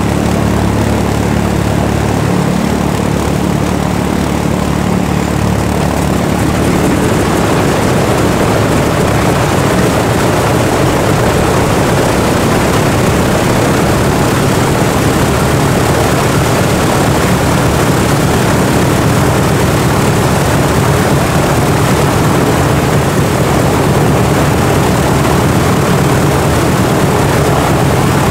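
Nine-cylinder Shvetsov ASh-62IR radial engines of a Lisunov Li-2: one runs steadily while the second is started and catches about six seconds in. After that both engines run together, a little louder and denser.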